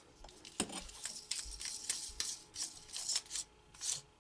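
Handling noise from a DeWalt DWP611 compact router's motor being lifted out of its base and turned in the hands: a run of irregular clicks, light knocks and scrapes of plastic and aluminium.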